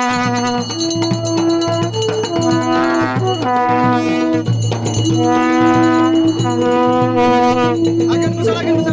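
Devotional folk music: a wind melody of held notes that step between pitches over a steady low drone, with jingling, rattling percussion.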